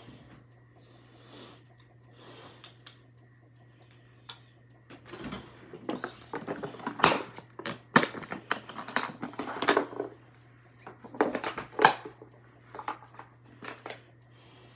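Plastic makeup compacts and items clicking and clattering as they are handled and sorted in a makeup case, a quick run of sharp taps and knocks, busiest through the middle with another flurry about twelve seconds in.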